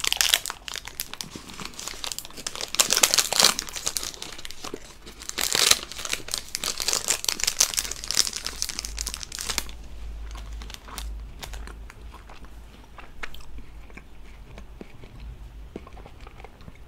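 Close-miked crinkling and crunching from eating a KitKat chocolate wafer bar: dense crackling for about the first ten seconds, then quieter chewing with occasional small crackles.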